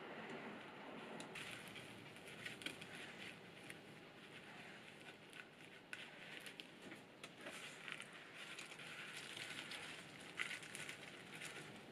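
Faint crackling and rustling of a crisp, flaky croissant and the baking paper under it as it is handled, spread with a butter knife and stuffed with salad leaves, with scattered small clicks and a slightly louder crackle about ten seconds in.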